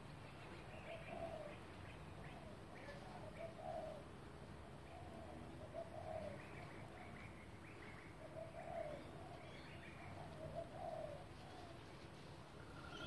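Backyard birds calling: short, low cooing notes repeated about once a second, with fainter high chirps between them.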